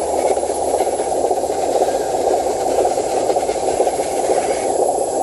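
Homemade RC Hino 500 dump truck's electric drive motor and gearbox running steadily as the loaded truck crawls through grass.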